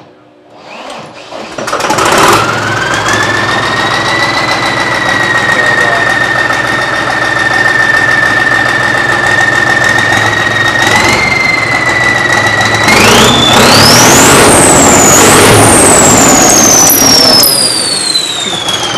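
Modified John Deere 5210 tractor's turbocharged diesel engine cranked and firing up about a second and a half in, then idling with a steady turbo whistle. Near the end it is revved hard twice, the whistle climbing high and then falling away as the revs drop.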